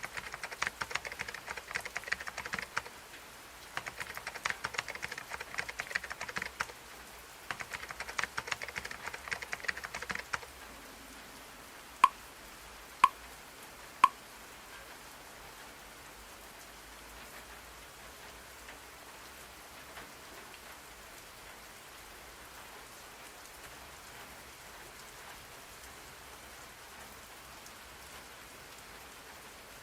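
Keyboard typing in three bursts of a few seconds each, then three short electronic beeps a second apart, followed by a steady rain sound.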